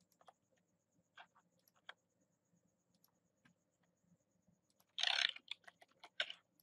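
Quiet clicks of a computer mouse and keyboard. There are a few single clicks in the first two seconds, then a quick cluster of clicks and keystrokes about five seconds in.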